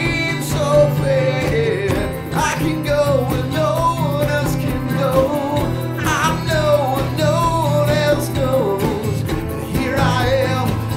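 Acoustic guitar strummed, with a man's voice singing a melody over it.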